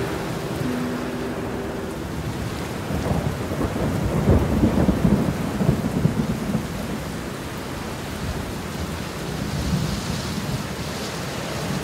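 Steady heavy rain with a rolling rumble of thunder that builds about three seconds in and dies away by about seven seconds.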